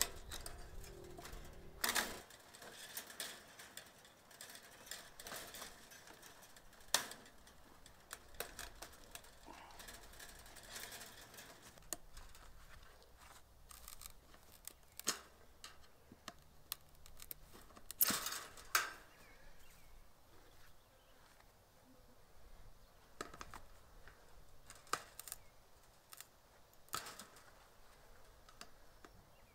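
Fencing pliers working woven wire fencing loose from a wooden post: scattered, irregular sharp metallic clicks and snaps, a few of them much louder than the rest.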